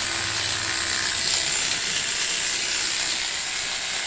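Electric hair clippers running steadily with a hiss as they cut a customer's hair.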